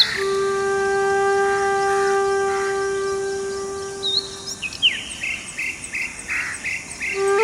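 Background music: a wind instrument holds one long steady note for about four and a half seconds, then a quick run of short, high chirping notes follows near the end.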